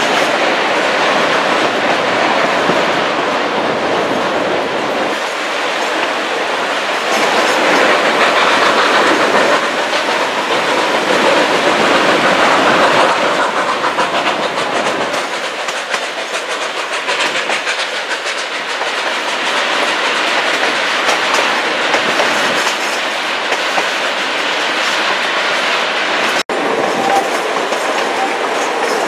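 Narrow-gauge passenger train running along the track, its coach wheels clattering over the rails under a steady rushing noise.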